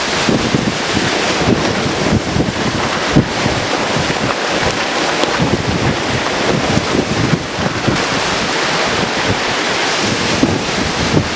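Severe thunderstorm wind from a supercell, gusting past 70 mph: a loud, continuous rush with heavy, irregular buffeting of the microphone.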